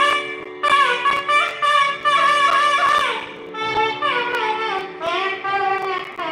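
Carnatic temple music: a wind instrument plays a sliding, ornamented melody over a steady drone, with a few sharp strokes.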